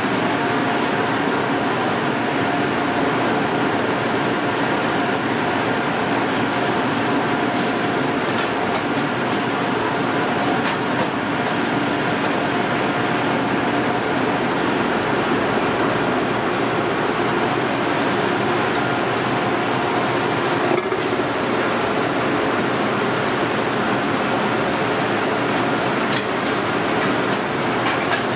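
Steady whirring noise with faint humming tones through it, broken now and then by a few light clicks or clatters, as of kitchen machinery.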